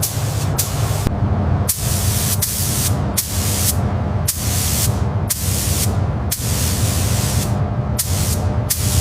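Pressurised spray hissing in about a dozen short bursts that start and stop abruptly, over a steady low hum.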